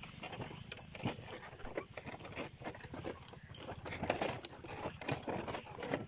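Irregular crunching footsteps on dry stubble and dirt, several a second.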